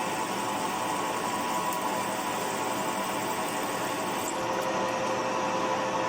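Machine spindle running at about 600 rpm, drilling a hole in a welded metal slider: a steady running noise with a faint whine. About four seconds in, the high hiss fades and a steady tone comes in.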